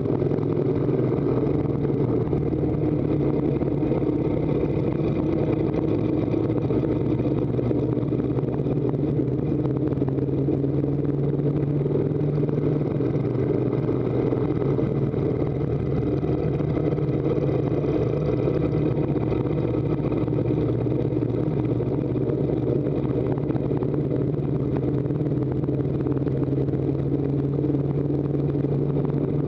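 Harley-Davidson V-twin motorcycle engine running steadily under load, pulling the bike up a mountain grade, with tyre and wind noise.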